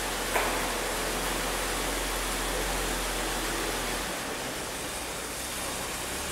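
1954 Chevrolet one-ton pickup's engine running as the truck rolls slowly, heard as a steady rushing noise over a low hum in a large metal shed. A brief knock comes about half a second in.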